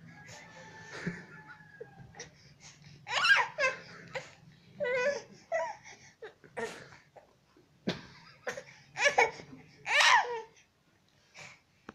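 A baby laughing and babbling in a series of short vocal bursts, the loudest about three seconds in and twice near the end.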